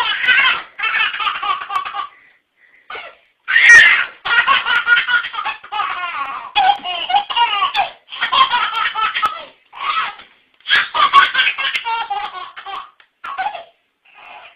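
A baby laughing in repeated fits of belly laughs, each a run of quick giggles, with short breaks between the fits.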